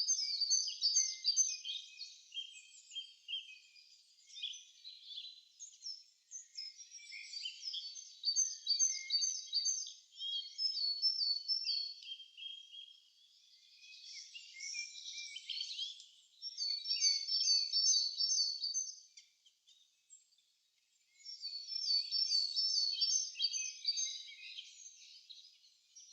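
Songbirds singing: repeated phrases of quick, high chirping notes, several birds overlapping, with a brief pause about twenty seconds in.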